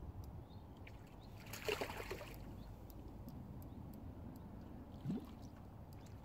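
Water sloshing and splashing as a hooked carp is played close in, with one louder splash about two seconds in. A brief rising sound comes about five seconds in.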